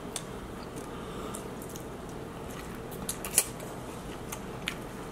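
Eating sounds at close range: scattered small wet clicks and squishes of food being chewed and handled, with one sharper click about three and a half seconds in.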